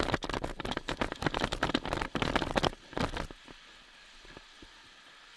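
Paintball player's gear rattling and clattering while sprinting to a bunker: a dense, irregular crackle for about three seconds, then it drops to a low steady hiss.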